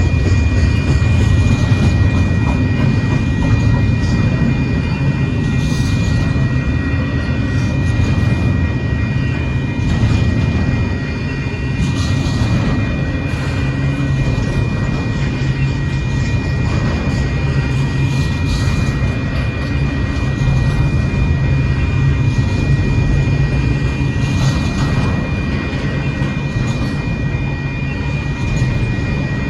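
Union Pacific intermodal freight train rolling past, a loud steady rumble of wheels on rail. A thin steady high whine runs through it, with a brief louder clatter every few seconds.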